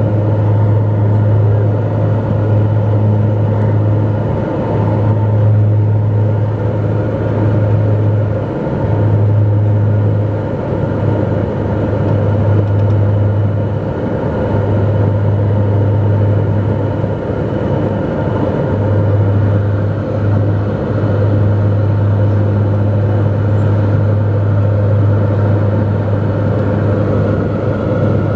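Steady cabin drone of a Dornier 228 twin-turboprop airliner in flight: a strong low propeller hum over engine and air noise. The hum wavers and briefly fades every few seconds as the two propellers beat against each other.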